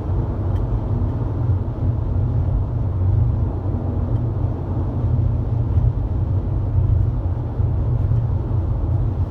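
Car driving on the road: a steady, loud low rumble of road and engine noise.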